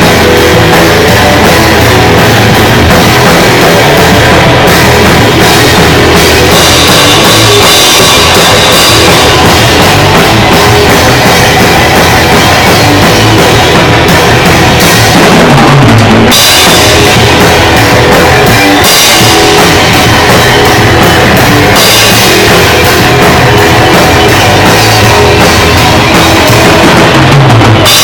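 Garage rock band playing loud, with a driving drum kit, bass drum and cymbals up front; the cymbals drop out briefly about halfway through.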